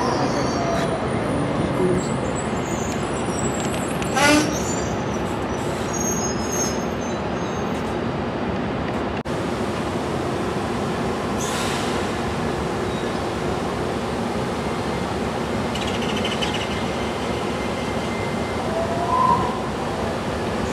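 DART light rail train at the platform giving a steady rumble and hum, with a short sharp squeal about four seconds in and a brief high squeal near the end.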